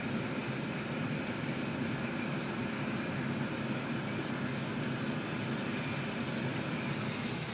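Steady engine and road noise from a moving car, heard from inside the cabin.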